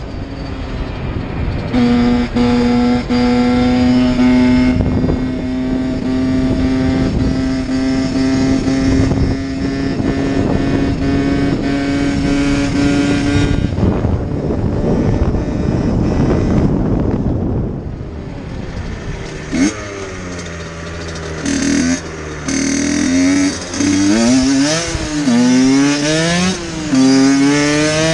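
Dirt bike engine under way, first holding a steady, slowly rising note, then after a lull revving up and dropping back several times as it accelerates and shifts, with wind rushing over the microphone.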